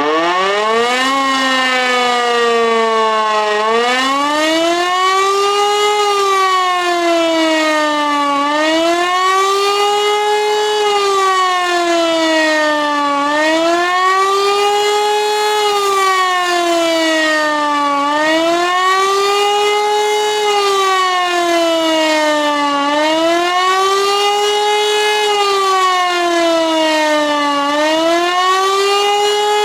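E57 motor-driven civil defence siren spinning up at the start, then sounding the German 'Warnung' warning signal on a test run: one wailing tone that rises and falls about every four to five seconds.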